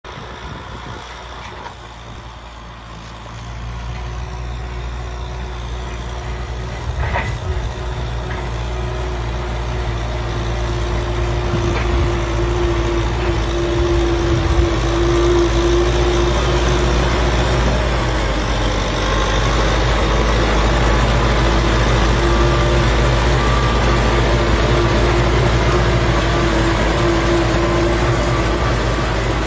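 Kubota M6040 tractor's diesel engine running steadily under load as it pulls a disc plow through dry soil. It grows louder over the first half as the tractor comes close, then holds.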